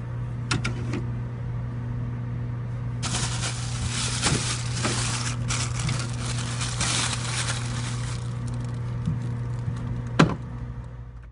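A plastic bag crinkling and rustling as it is handled, densest from about three to eight seconds in, over a steady low hum, with a few sharp clicks.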